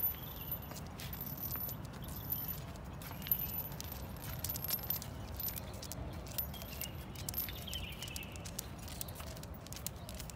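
Irregular light metallic clinks and ticks of a dog's leash clip and collar jingling as the dog sniffs about, over a low steady rumble.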